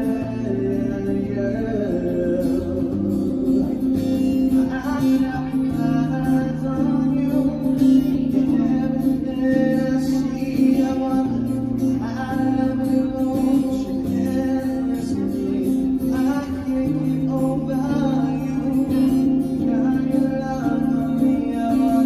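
A man singing into a microphone over his own strummed acoustic guitar, plugged in and amplified; sung phrases come and go over steady guitar chords.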